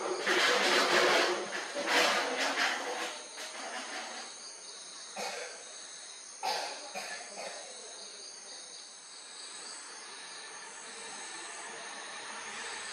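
Insects chirring steadily in a high-pitched chorus. A loud noisy disturbance fills the first few seconds, and two short sounds come about five and six and a half seconds in.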